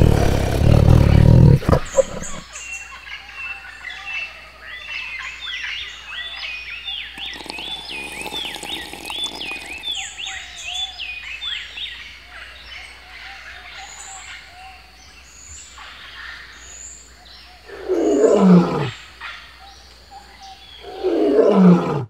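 A tiger's deep growl in the first two seconds, then birds chirping over and over for about ten seconds. Near the end come two loud roars that fall steeply in pitch, about three seconds apart: a lion roaring.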